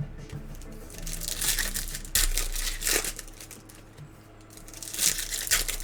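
Plastic and foil card packaging crinkling and tearing in two spells of rustling, one about a second in and one near the end: trading card packs or box wrap being handled and opened.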